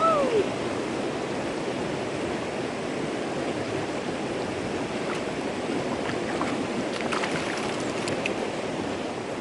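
Steady rush of river water flowing over rock shelves and shallow riffles, with a few faint small splashes partway through as a trout is let go into the water.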